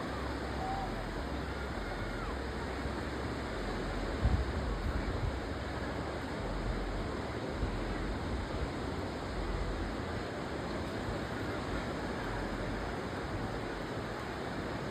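Ocean surf washing steadily, with a brief low bump, like wind on the microphone, about four seconds in.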